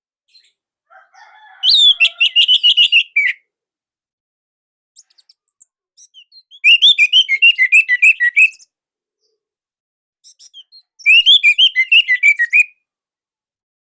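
Orange-headed thrush singing: three loud phrases, each a quick run of repeated whistled notes lasting about one and a half to two seconds, with a few seconds of silence between them.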